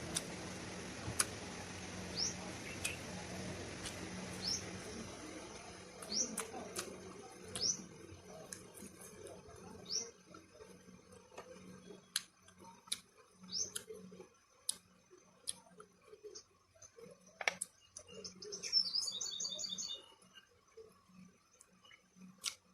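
A bird chirping faintly in short rising notes every second or two, with a quick run of chirps near the end. Scattered sharp clicks fall between the chirps in the second half.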